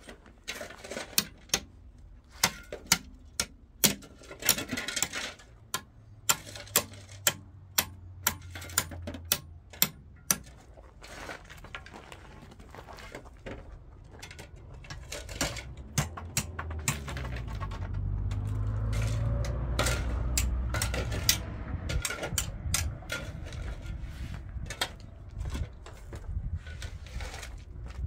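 Sharp metallic clinks and knocks of a metal rake head against gravel and stones, coming irregularly about one or two a second. About halfway in a low rumble rises under the clinks and eases off again near the end.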